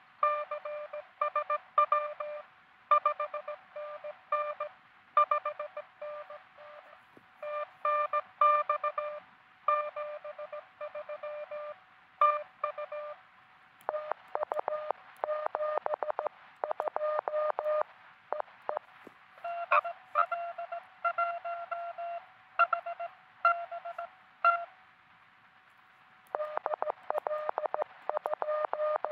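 Morse code (CW) from a truSDX QRP transceiver during contacts: dits and dahs keyed at one pitch, with a second station's signal at a slightly higher pitch for several seconds past the middle. A faint steady tone sits underneath.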